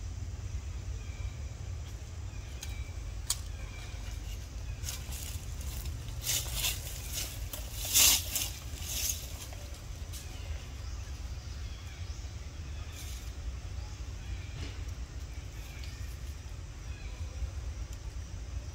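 Outdoor ambience: a steady low rumble, with a run of crackling, rustling sounds in the middle, loudest about eight seconds in.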